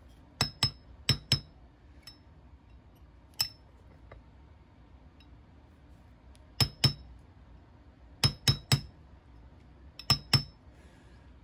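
Brass hammer tapping a steel pin punch to drive the extractor pin back into a CZ P-07 pistol slide. About a dozen sharp, ringing metallic taps come in quick pairs and threes, with pauses of a second or more between groups.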